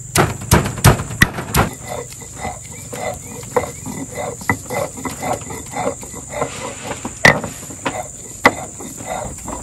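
Stone roller of a batu giling grinding slab crushing ginger, garlic and fresh turmeric. Several sharp stone-on-stone knocks at the start give way to a steady rhythm of grinding strokes about twice a second, with two more knocks near the end.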